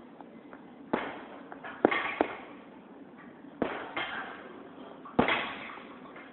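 Gloved punches smacking into a hanging heavy bag: about six hits, some in quick pairs, each a sharp smack that dies away quickly.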